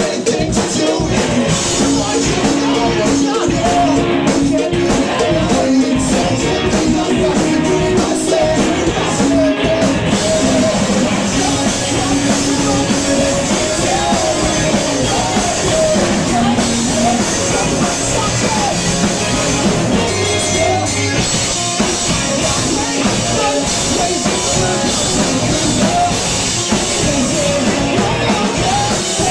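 Live rock band playing loud, with electric guitars, a synth keyboard, drums and a singer's vocal.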